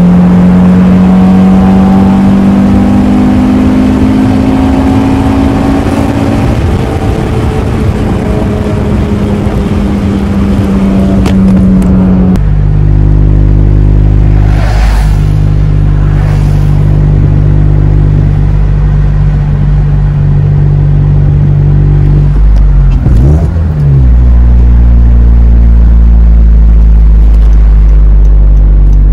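Honda Civic K24 four-cylinder with an aftermarket downpipe and exhaust, heard loud from inside the cabin while driving. Its note rises slowly under light throttle, then drops suddenly about halfway through to a low, steady drone at cruising revs, with a brief dip and recovery in pitch near the end.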